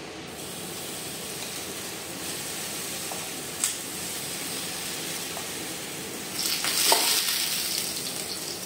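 Semolina (sooji) batter sizzling as it is poured onto a hot, oiled nonstick tawa and spread with a spoon. A steady hiss grows louder for a couple of seconds near the end, with a short click or two.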